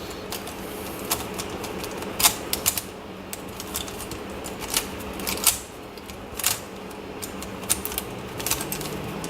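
Plastic MoYu Crazy YiLeng puzzle cube being turned by hand, its layers clicking and clacking in quick irregular snaps while an algorithm is executed.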